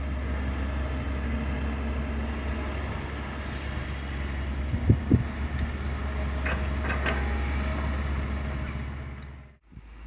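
Komatsu PC200 hydraulic excavator's diesel engine running steadily as it digs and loads, with a few dull knocks about five seconds in and some clanks a little later. The sound dies away just before the end.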